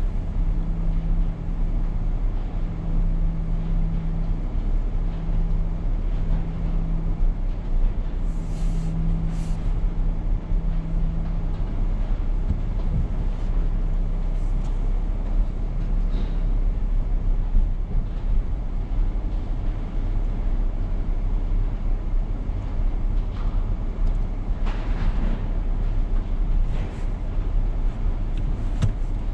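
Steady low vehicle rumble, with a humming tone that cuts in and out through the first half and short hisses about nine seconds and twenty-five seconds in.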